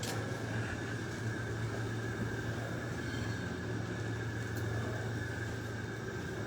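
Steady low machine hum of a working machine shop, with faint scattered clicks.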